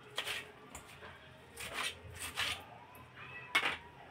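A hand gathering and turning chopped purslane (ghol) leaves and stems in a steel plate makes a handful of short rustling, scraping sweeps of wet greens against the metal.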